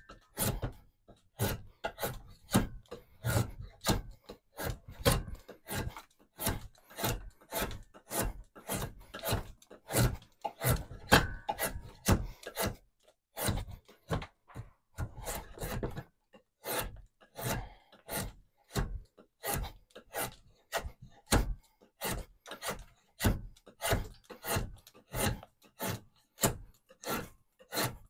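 Drawknife shaving a walnut log clamped in a bench vise: short scraping strokes, about two a second, with a couple of brief pauses midway.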